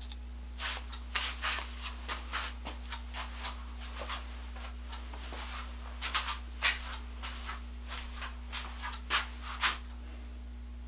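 Irregular light clicks, taps and short scrapes of small parts and hand tools being handled, loudest about two thirds of the way in, over a steady low hum.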